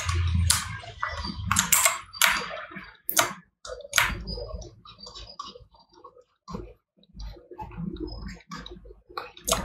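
Irregular clicks and taps from computer input devices, mouse buttons and keyboard keys, at an uneven pace.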